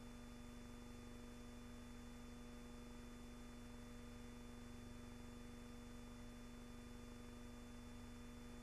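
Near silence: a faint steady hum with hiss, with no gunfire or explosions.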